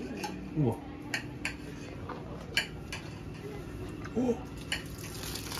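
Kitchen clatter: a scattered series of sharp clinks and taps of cutlery and dishes, a knife working on a plate among bowls, over a low steady hum.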